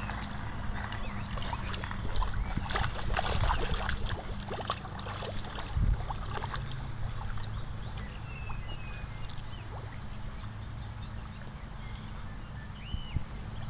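A dog wading through a shallow stream, splashing and sloshing the water as it paws and noses about. The splashing is busiest in the first half, with one sharper splash about six seconds in.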